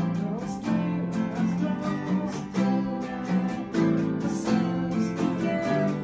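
Several acoustic guitars playing together, strummed chords in a steady rhythm with picked notes over them: an instrumental passage of an indie rock song.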